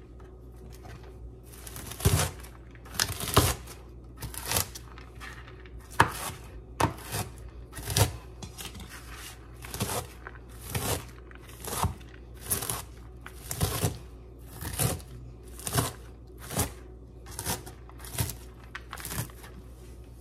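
Chef's knife chopping shredded cabbage on a cutting board, a steady run of crunching strokes about once a second that begins about two seconds in.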